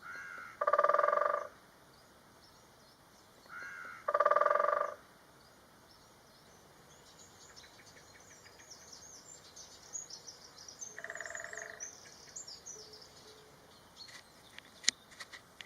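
Great spotted woodpecker drumming: short, very rapid rolls of its bill on resonant wood, two loud ones about three seconds apart near the start and a fainter one partway through, each lasting under a second. Small birds chirp faintly in the middle, and a few sharp clicks come near the end.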